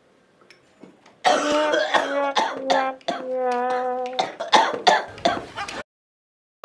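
A man coughing in a fit for several seconds, with a long held vocal sound in the middle of it, then cutting off abruptly.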